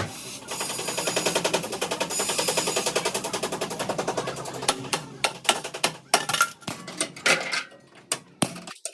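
Metal-working taps on car body panels: a fast, even run of sharp taps, about a dozen a second, for roughly four seconds, then scattered single knocks and taps with short gaps between them.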